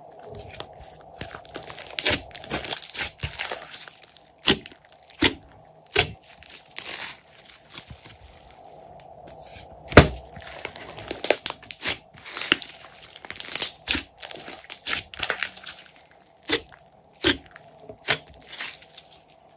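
Glossy slime being squished, stretched and poked by hand, giving irregular sharp pops and crackles as trapped air bursts out of it. The loudest single pop comes about halfway through.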